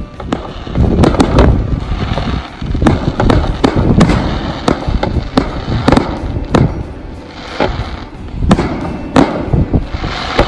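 Fireworks display going off: an irregular, rapid run of bangs and pops, several a second, with crackling rushes late on.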